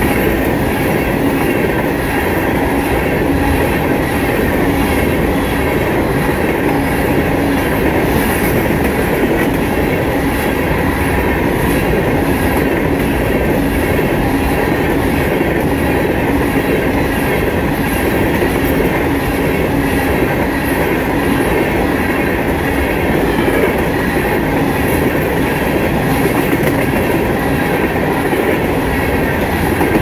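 Empty rock-train hopper cars rolling past at speed: the steady, loud noise of steel wheels running on the rails.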